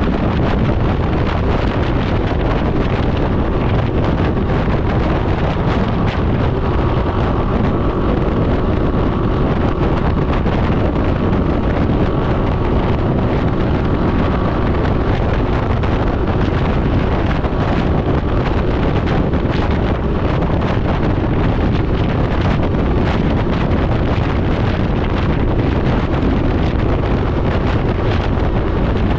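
Steady wind rushing over the microphone of a Can-Am Ryker 900 three-wheeler riding at speed, with the bike's three-cylinder engine running underneath.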